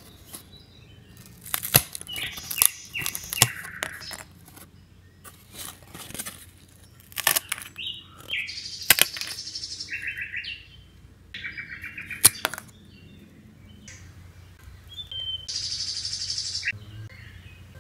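Card puzzle pieces clicking and snapping as fingers press them out of the sheet, with a bird chirping in several short, fast trills, the longest near the end.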